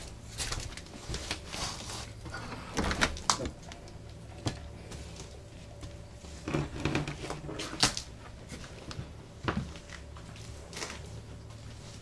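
Wooden door being opened and handled: scattered knocks, creaks and scrapes, the sharpest about three, eight and nine and a half seconds in.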